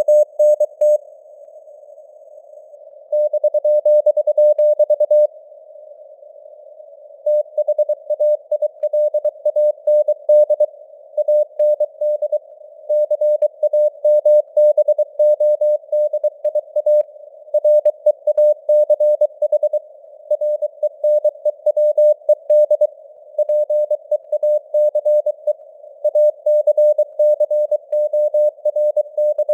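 Morse code (CW) sent at 23 words per minute: a single beeping tone keyed on and off in dots and dashes over a narrow band of radio-style hiss. There are short pauses between words, and the signal strength varies, like fading (QSB) on a real radio signal.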